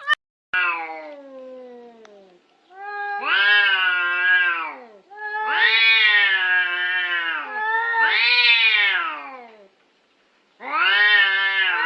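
A domestic cat yowling: about five long, drawn-out calls in a row that waver up and down in pitch, the first one sliding downward. A sharp click opens the sequence.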